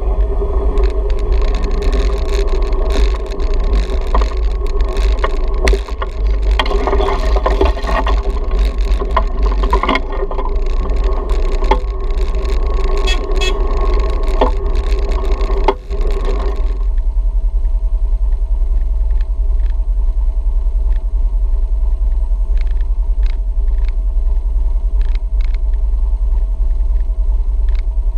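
Off-road vehicle engine running under way on a dirt trail, over a heavy low rumble and scattered knocks. About two-thirds of the way through the engine note drops to a quieter, steady running or idle.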